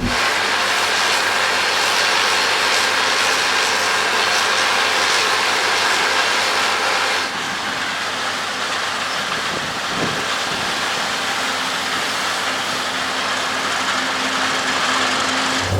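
Case IH AF10 combine harvester running while harvesting wheat: a loud, steady mechanical rush, dropping a little in level about seven seconds in.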